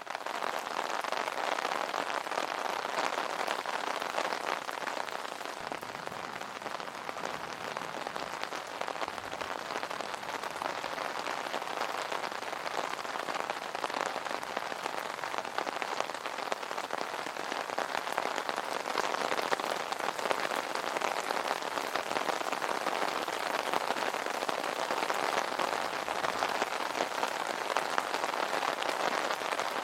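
Steady rain falling on an umbrella canopy, a dense even spray of drops ticking on the fabric.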